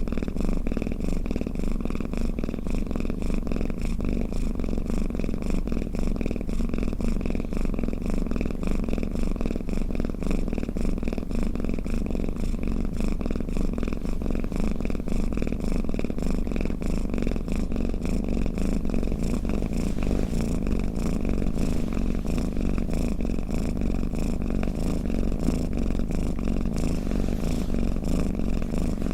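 Domestic cat purring steadily, a continuous low rumble with no breaks.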